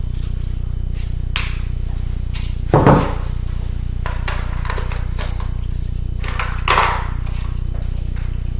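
Scattered clicks and knocks of laptop parts and a tool being handled during disassembly, two louder knocks about three and seven seconds in, over a steady low electrical hum.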